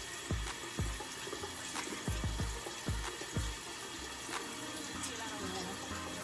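Tap water running steadily into a sink, with background music whose bass drum thumps through the first half.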